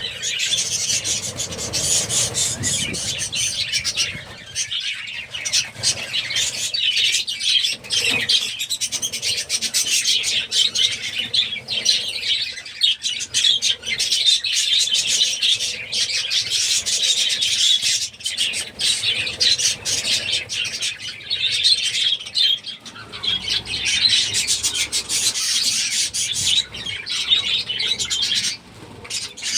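A flock of budgerigars chattering continuously, a dense overlapping mix of warbles and chirps with many short sharp clicks.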